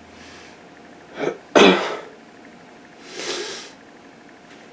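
A person sneezes once, a sharp burst with a quick breath in just before it, followed by a breathy exhale about a second and a half later.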